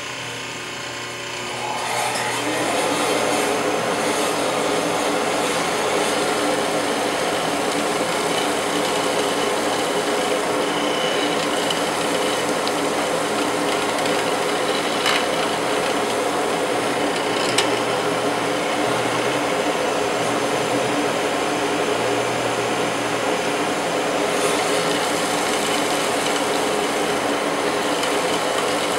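Powermatic PM-719 hollow-chisel mortiser running, coming up to full speed over the first two seconds and then running steadily as its square chisel and auger bore a mortise into the wood. A couple of faint clicks come through partway in.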